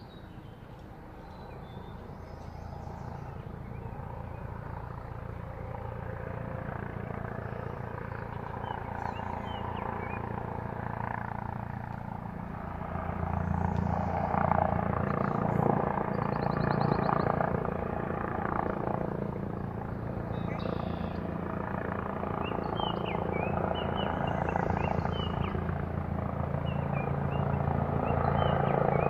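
A motor running with a steady low hum, growing gradually louder and drawing nearer, loudest in the second half.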